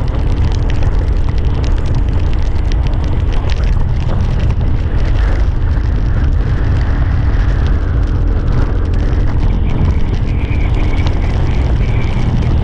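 Motorcycle running steadily on the road, its engine partly buried under heavy wind rumble on the microphone.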